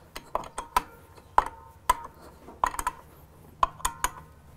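Hand socket wrench tightening the clutch spring bolts on a clutch pressure plate: sharp metallic clicks with a short ring, coming irregularly a few times a second.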